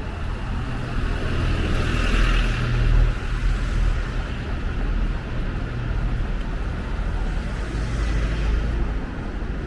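Red double-decker bus passing close by and pulling away, its engine giving a steady low rumble with a hiss of tyres on the road that is loudest a couple of seconds in, amid light city traffic.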